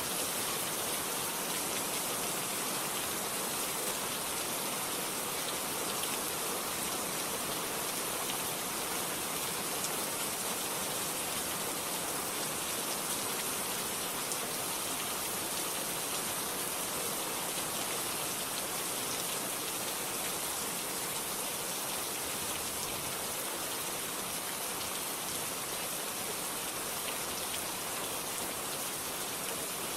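Steady rain falling on a surface, a constant even hiss with scattered drop ticks and no thunder.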